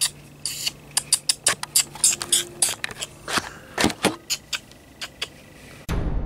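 A run of sharp, irregular clicks and taps, several a second, over a faint steady hum. A loud low rumble starts just before the end.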